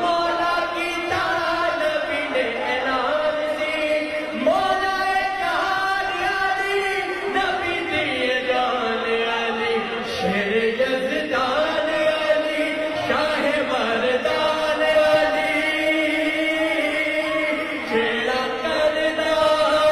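A man singing a Punjabi devotional kalam in praise of Ali (a manqabat for Eid al-Ghadir) into a microphone, in long held notes that slide and waver in pitch.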